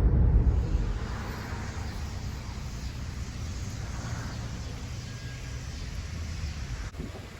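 Low engine rumble that fades over the first second, leaving a steady low hum against outdoor background noise.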